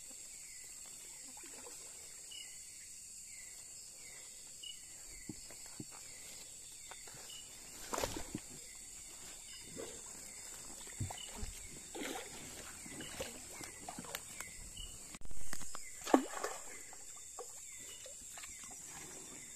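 A steady high-pitched insect chorus, with a short chirp repeating a little more than once a second. A few soft knocks are heard, and there is a brief loud rush of noise about fifteen seconds in.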